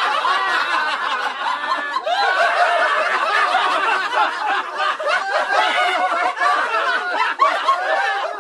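People laughing, many voices overlapping without a break.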